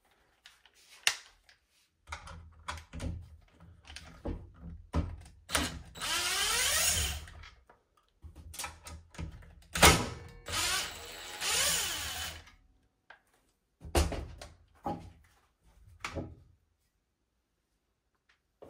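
A power driver spins twice, each run lasting a second and a half or so with a whine that rises in pitch, backing out the two Torx T20 screws on a circular saw's motor cover. Around the runs come short clicks and knocks of the tool and the plastic cover being handled.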